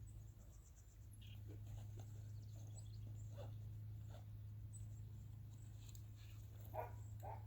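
Faint short animal calls over a steady low hum, the two strongest close together near the end.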